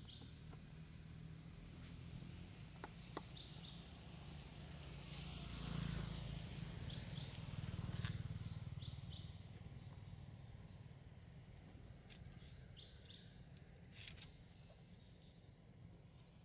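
Faint outdoor ambience: a low rumble that swells twice near the middle, with scattered short high chirps and a few light clicks.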